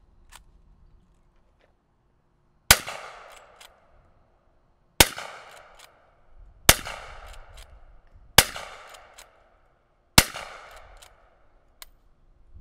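Winchester 1892 lever-action rifle chambered in .45 ACP fired five times, roughly two seconds apart. Each shot has a short trailing echo, and smaller metallic clicks of the lever being worked fall between the shots.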